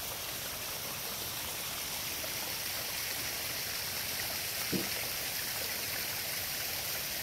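Hot spring water running in a shallow stream, a steady even rush of flowing water.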